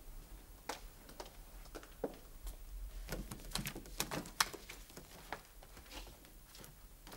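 Papers and small objects being handled on an office desk: a series of light clicks, taps and rustles, busiest from about three to four and a half seconds in.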